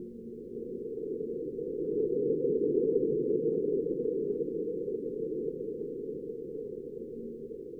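Marsquake recorded by NASA's InSight lander's SEIS seismometer, sped up about 60 times into the audible range: a low rumble that swells over the first two or three seconds, then slowly fades.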